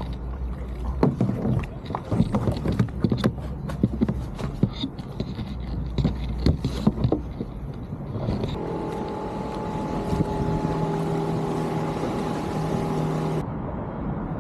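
Kayak paddling: irregular knocks and splashes as the paddle strikes the water and hull. Partway through, a steady motor hum comes in and holds for several seconds, then cuts off abruptly near the end.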